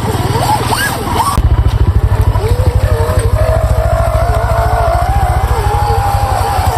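Scale RC crawler running, a motor whine wavering up and down in pitch over a low, fast, engine-like pulsing that gets louder about a second and a half in.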